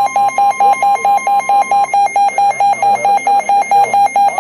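Weather alert radio sounding its alarm for an incoming severe thunderstorm warning: loud, rapid electronic beeping at about six beeps a second, over a steady high tone that stops about two seconds in.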